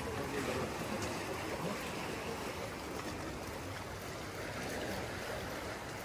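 Sea waves washing and breaking over rocks below a seawall: a steady rush of surf that swells gently now and then.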